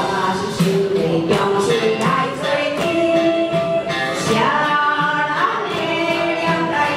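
A woman singing karaoke into a microphone over a recorded backing track, holding long notes that bend in pitch.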